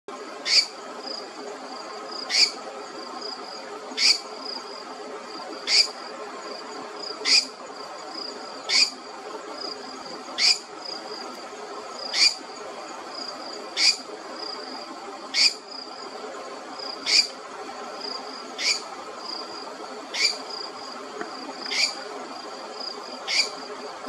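Ryukyu scops owl calling: a short, sharp, high note repeated evenly about every second and a half. A steady chorus of crickets or other insects runs underneath.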